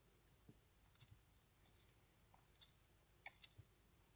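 Cow chewing her afterbirth: faint, irregular wet clicks and smacks from her mouth, with a quick cluster of them about three seconds in.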